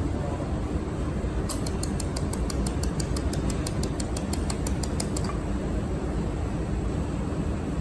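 Mold-repair pulsed laser welder firing, a steady train of sharp ticks at about five a second that starts about a second and a half in and stops a few seconds later. Underneath runs the steady hum of the machine's cooling fan.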